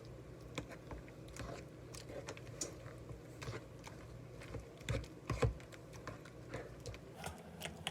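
Utensil stirring a thick cream cheese and whipping cream paste in a mixing bowl: irregular light clicks and taps, with two louder knocks about five seconds in.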